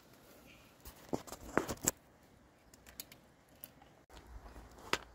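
Faint scattered clicks and rustling, like small handling noises close to the microphone, with a busier cluster of them about a second in.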